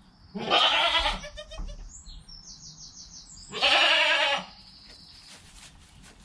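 Goat bleating: two loud, wavering calls about three seconds apart.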